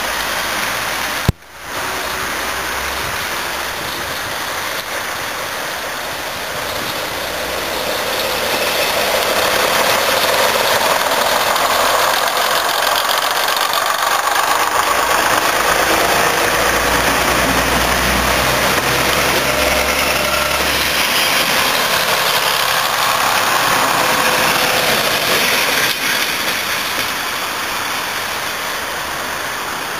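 BR Class 115 diesel multiple unit running. The engines and rolling noise grow louder as the carriages pass close by through the middle, with a low rumble, then drop back near the end. There is a sharp click about a second in.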